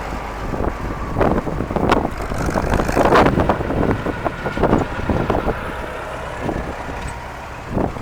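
Strong wind buffeting the microphone in irregular gusts, over the steady low running of tractor engines.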